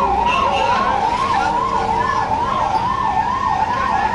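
Delhi Police vehicle siren sounding a fast up-and-down wail, about two and a half sweeps a second, over street noise.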